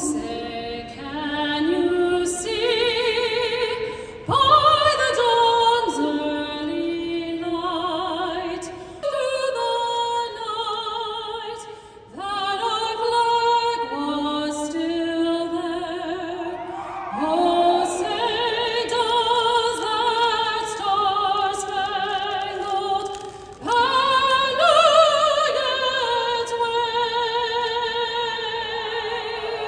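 A solo singer, most likely a woman, singing a slow song in an operatic style, with long held notes and strong vibrato, in phrases that pause briefly every few seconds.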